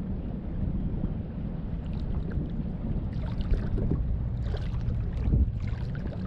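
Wind rumbling on the camera microphone while water laps and splashes against the hull of a kayak, with a few splashes clustered in the second half.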